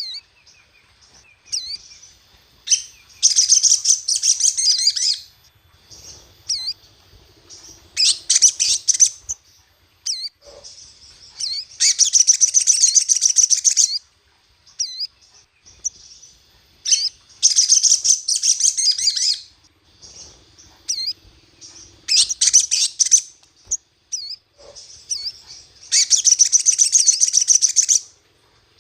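Sogon (sogok ontong, a spiderhunter) singing: repeated bursts of fast, high-pitched chattering, each about two seconds long, with short single chirps between them. This is a lure recording of its agitated song, used to provoke other sogon into singing.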